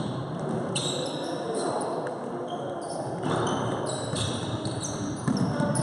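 Basketball game in an echoing sports hall: the ball bouncing, trainers squeaking in short high squeals on the court floor, and a couple of sharp knocks.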